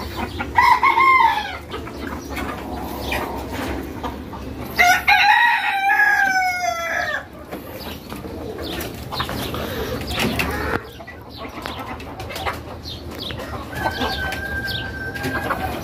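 A mixed flock of native chickens clucking throughout. A rooster crows once about five seconds in, a long call of over two seconds that falls in pitch at the end, and a shorter call comes about half a second in.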